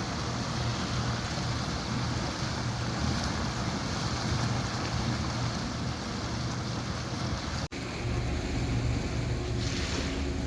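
Boat under way: wind buffeting the microphone and water rushing past the hull over a steady low engine hum, with a momentary break about three quarters of the way through.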